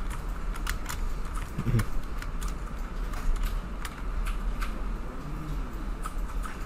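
Irregular clicks of a computer mouse and keyboard being worked, over a steady low electrical hum, with a brief low tone about two seconds in.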